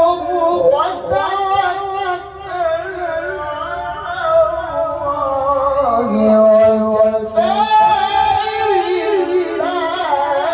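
A man reciting the Qur'an in the melodic tilawah style through a microphone and PA system, in a high register with long, ornamented held notes whose pitch wavers and glides.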